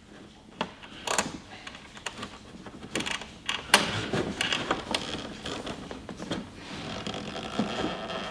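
Hand-handling sounds behind a Corvette C7's plastic rear fender vent: irregular light clicks, knocks and rubbing as a small nut is fumbled onto its stud while the fender is held up.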